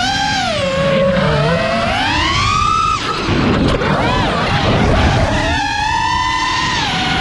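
FPV quadcopter's brushless motors and propellers whining, heard from the onboard GoPro, the pitch sliding up and down with the throttle. About three seconds in the whine breaks into a ragged rush of air and prop noise for a couple of seconds, then the steady whine picks up again.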